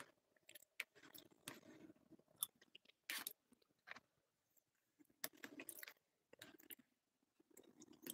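A person chewing food close to the microphone: faint chewing sounds in short irregular spells, with a few sharp clicks.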